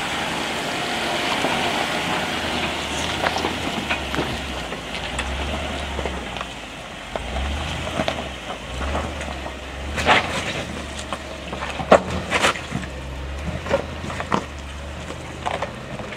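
A 2011 Land Rover LR4 crawling slowly over a rocky trail: its V8 engine hums low beneath the crunch of tyres on gravel and stones. Scattered sharp clicks and knocks of rock under the tyres, loudest about two-thirds of the way through.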